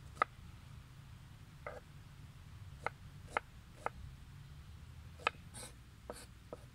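Kitchen knife cutting a peeled onion on a wooden chopping board: about ten sharp, irregularly spaced knocks as the blade meets the board, over a low steady rumble.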